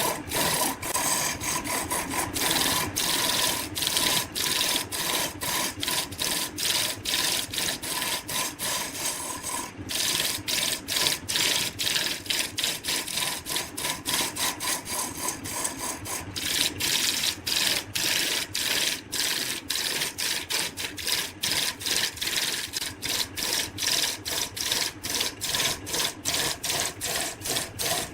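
Wood being rasped with quick back-and-forth strokes, about four a second, in an even, continuous rhythm.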